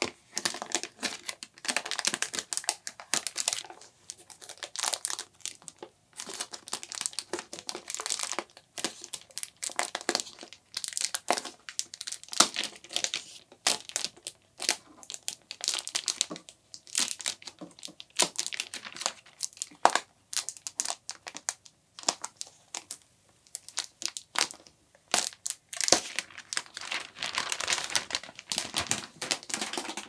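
Protective plastic film being peeled off an iMac's glass screen: irregular crackling and crinkling of the thin plastic, coming in spells with brief pauses.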